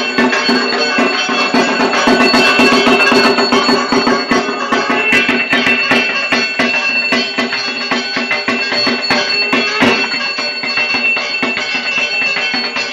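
Dhak drums played in a fast, dense rhythm for puja aarti, over a steady droning tone.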